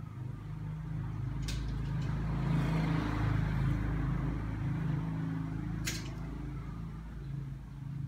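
A motor vehicle's engine running, growing louder around two to four seconds in and then easing off. Two sharp clicks of wire clothes hangers being handled come about four seconds apart.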